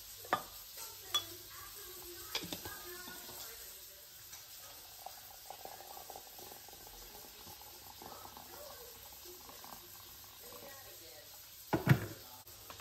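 Granules shaken from a jar into a glass measuring jug with a few light clinks, then water poured from a kettle into the jug in a steady stream for several seconds. A loud knock near the end.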